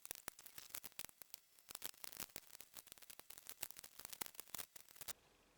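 Plastic building bricks clicking and clacking as they are pressed together, in sped-up footage: a quick, irregular run of sharp clicks that cuts off suddenly near the end.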